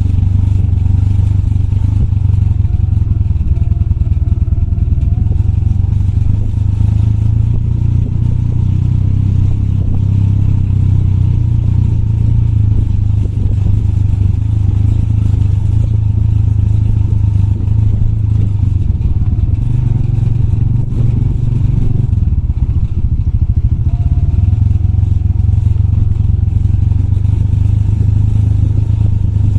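Motorbike engine running steadily under the rider, with clatter and rattling from riding over a rough dirt trail; the engine note eases briefly about two-thirds of the way through.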